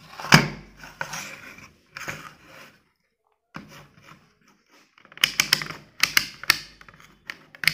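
Clicks and knocks from a handheld digital multimeter being handled: one sharp knock about a third of a second in, then from about five seconds in a quick run of sharp ratcheting clicks as its rotary selector dial is turned.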